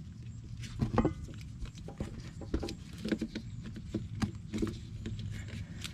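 Irregular light clicks and taps from a serpentine belt being worked by hand around its pulleys while the spring-loaded tensioner is held back with a ratchet and extensions, over a low steady hum.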